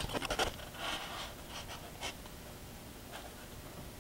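A small paintbrush scrubbing dry weathering pigment powder onto a model building's shingled roof: a few quick scratchy strokes in the first second, then faint soft brushing.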